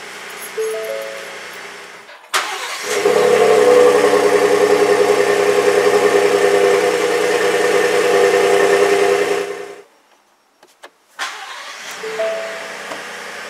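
2021 Ford F-150's 3.5-litre twin-turbo EcoBoost V6 starting about two seconds in, then running steadily with a slight pulse at the exhaust tip for about seven seconds before cutting off suddenly. Music plays before and after the engine.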